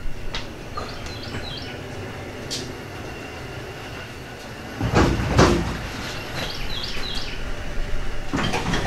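Tires of a 1968 Plymouth Barracuda rolling across a concrete floor as the car is pushed by hand: a steady low rumble with a louder bump about five seconds in.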